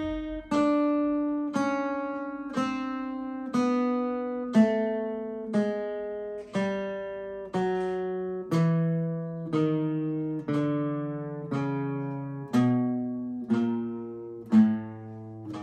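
Acoustic guitar playing the spider finger exercise: single picked notes, about one a second, each ringing until the next, stepping downward in pitch.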